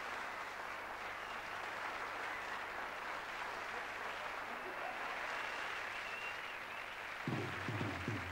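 Studio audience applauding steadily. A little over seven seconds in, a live band starts playing underneath the applause.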